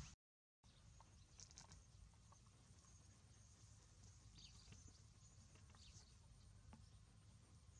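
Near silence: faint background hum with a few faint, short high chirps, broken by a moment of total silence about half a second in.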